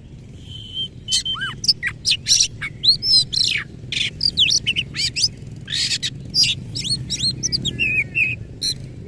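Oriental magpie-robin singing loudly. It opens with a single held whistle, then runs into a fast, varied string of whistled sweeps mixed with harsh, raspy phrases.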